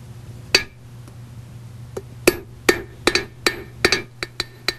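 Hammer striking copper stock on a steel anvil with light blows while drawing down a taper: sharp, ringing metallic strikes, a single one about half a second in, then after a pause about ten quicker strikes in an uneven rhythm.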